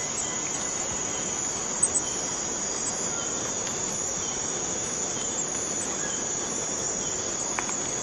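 Rainforest cicadas singing: a steady, high-pitched drone that runs on without a break.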